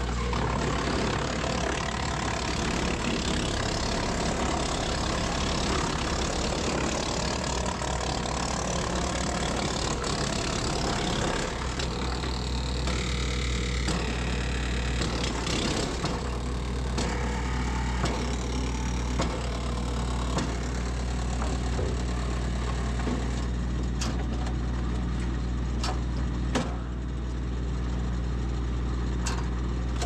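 Tractor-driven Mills wood chipper running, its steady engine hum under the grinding of a long sawmill slab being pulled in and chipped. The chipping is dense for the first eleven seconds or so, then thins out, with scattered sharp clacks in the last few seconds.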